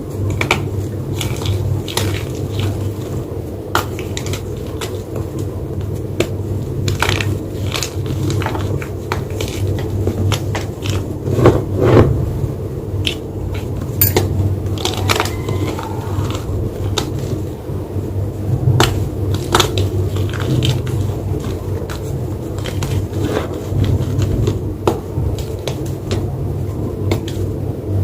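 White gym chalk crunching and crumbling: a continuous, irregular run of small crisp cracks and crackles, with a few louder crunches in the middle.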